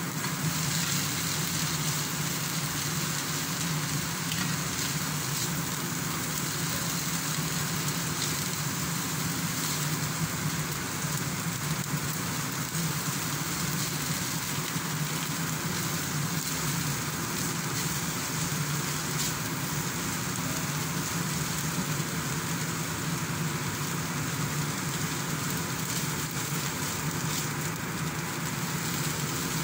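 Shredded chicken and vegetables sizzling in a stainless steel frying pan over a gas burner while being stirred with a silicone spatula: a steady crackling hiss, with a steady low hum underneath.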